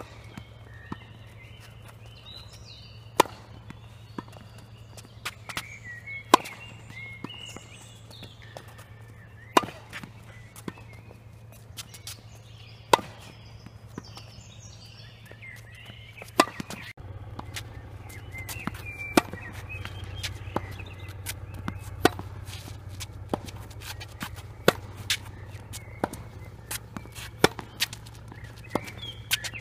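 Tennis balls struck with a racket, a sharp pop every three seconds or so, with softer ball bounces on the hard court between hits.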